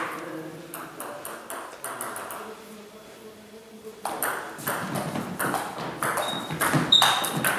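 Table tennis ball clicking off the rackets and table: a few scattered clicks at first, then a quick rally of crisp clicks from about four seconds in. Two short high squeaks come near the end.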